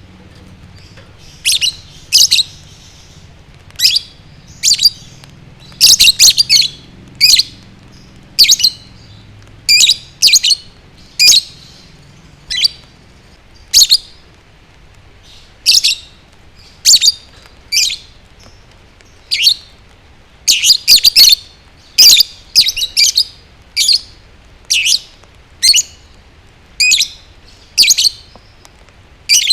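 Lovebird chirping in short, sharp, high calls, about one or two a second and sometimes in quick clusters of several. This is the kind of chirping that sets other lovebirds off singing.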